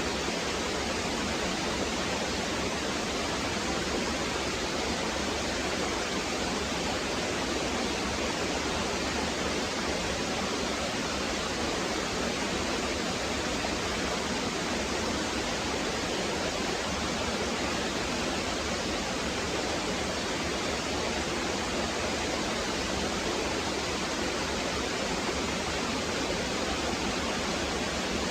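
Small waterfall splashing down a rock face: a steady, unbroken rush of falling water.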